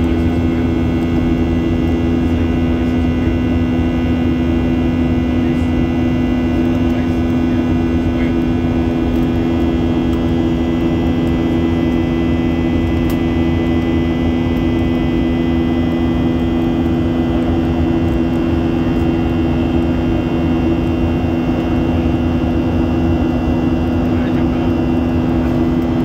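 Cabin noise of a Boeing 737-800 climbing after takeoff, heard inside the cabin: the CFM56-7B turbofans run at climb power as a loud, steady rumble with several steady whining tones over it.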